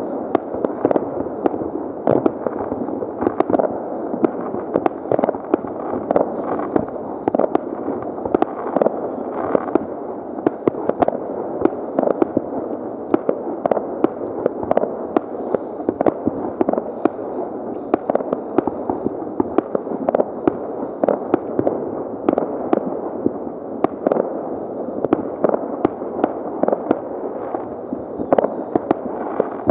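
Many fireworks rockets and firecrackers going off at once: a continuous crackling din of overlapping bangs, with sharper single reports standing out several times a second.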